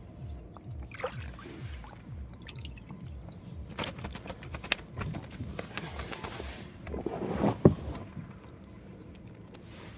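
Water splashing and sloshing, loudest in two spells around the middle and a little past it, with a few sharp knocks.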